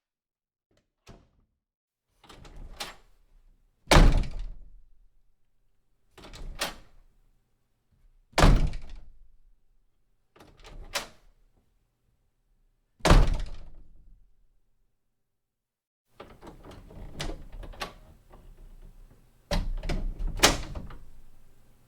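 A door shutting over and over with a heavy thunk, about six separate closes spaced a couple of seconds apart, each dying away quickly. About two-thirds of the way through, a second recording with a hiss behind it brings a few more door clunks.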